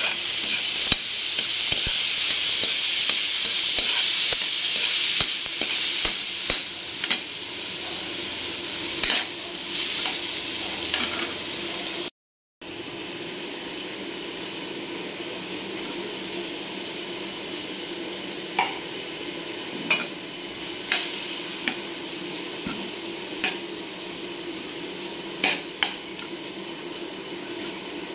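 Garlic, onion and tomato sizzling in oil in a wok, stirred and scraped with a spatula, with scattered clicks of the spatula against the pan. The sound cuts out briefly about twelve seconds in, and the sizzle is softer after that.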